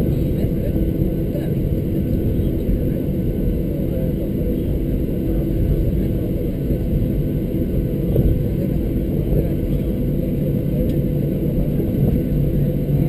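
Boeing 737-600 taxiing, heard from inside the cabin: a steady low rumble of its CFM56-7B engines at taxi idle as the jet rolls along the taxiway, with a constant hum underneath.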